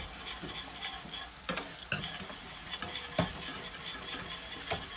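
A whisk stirring thickening goat cheese polenta in a pot, with a few sharp clicks of the whisk against the pot, over the steady sizzle of mushrooms sautéing in a pan.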